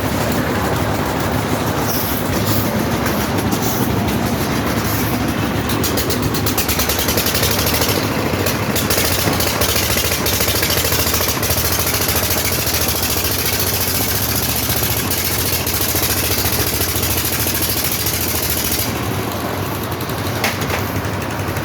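Concrete mixer machine running with a steady engine drone, and a fast rattling clatter for several seconds near the start.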